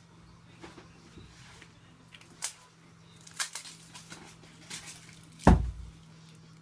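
Scattered clicks and knocks of handling, with one heavy thump about five and a half seconds in, over a faint steady hum.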